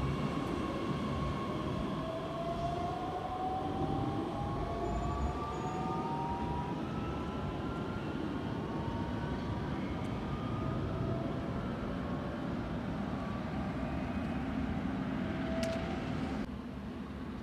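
Bombardier Talent 2 electric multiple unit pulling out of the station, its traction motors whining in several tones that rise steadily in pitch as it gathers speed, over a steady rumble of wheels on rail. The sound drops suddenly near the end.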